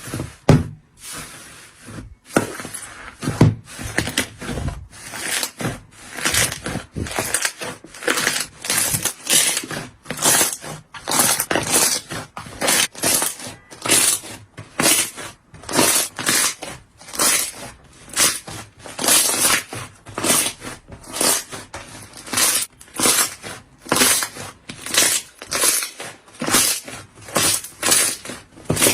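Slime being squeezed and pressed by hand, making a run of short wet crackling bursts about twice a second.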